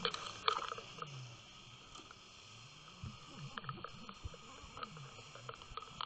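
Faint underwater noise from a submerged camera: a few sharp clicks at the start, then scattered light ticks over a low, wavering hum.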